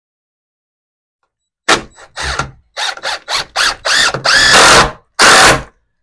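Power drill driving screws into truss lumber: a sharp knock, then a string of short trigger bursts and two longer runs in which the motor's whine rises and falls.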